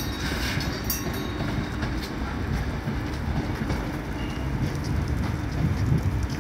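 MI2N double-deck electric multiple unit of RER E stock running slowly past, a steady low rumble with a few wheel clicks as it crosses the points.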